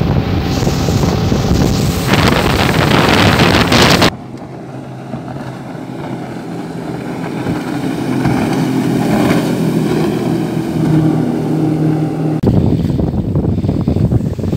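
A motorboat running at speed: engine and rushing wake buried under heavy wind noise on the microphone. About four seconds in it cuts to a quieter, steady outboard engine hum from a passing boat. Near the end the loud wind buffeting returns.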